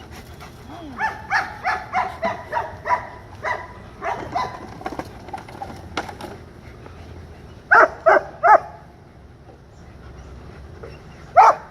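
German Shepherd dog barking at a lawn mower: a fast run of barks in the first few seconds, then three loud barks in quick succession about eight seconds in, and another loud bark at the very end.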